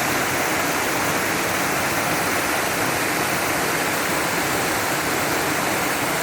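Small waterfall: water falling and splashing, a steady, even rushing with no changes.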